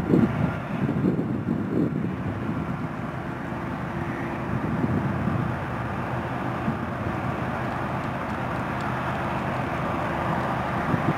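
Approaching CSX freight train's GE diesel locomotives (an ES44AH and an ES40DC in the lead), a steady engine drone that builds slowly as the train nears. Wind buffets the microphone in the first couple of seconds.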